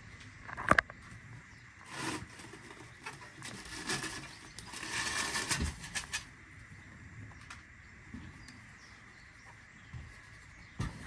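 Packaging being handled: scattered knocks and clicks, the sharpest about a second in, with a stretch of rustling about halfway through.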